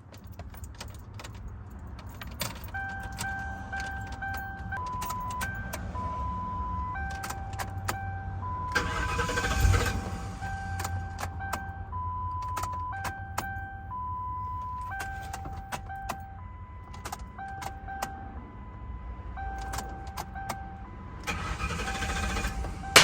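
A simple melody of held single notes, like background music, over a steady low rumble, with a louder hiss-like surge about nine seconds in and again near the end.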